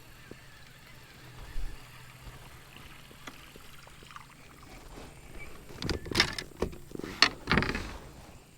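Knocking and rustling on a kayak: one knock about a second and a half in, then a quick run of louder knocks and scuffs near the end.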